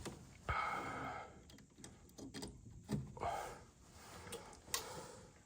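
Scattered clicks, knocks and rustles of hands working on the gas furnace's parts and hoses. The stronger knocks come about half a second in, near three seconds and near the end.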